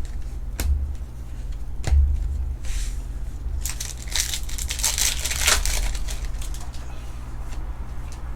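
Foil wrapper of a trading-card pack being handled and crumpled: a couple of sharp clicks, then a few seconds of crinkling that is loudest about four to six seconds in.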